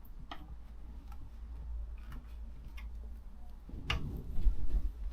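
Irregular light metallic clicks of small fixings and hand tools being handled, with a louder knock just before four seconds in, over a steady low hum.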